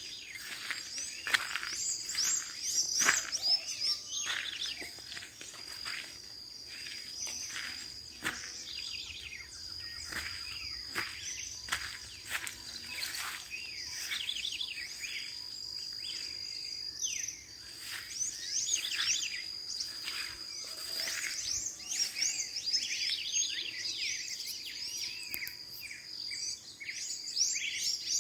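Several birds chirping and calling at dawn, short rapid calls and trills that crowd together in the first half and again near the end, over a steady high-pitched insect trill.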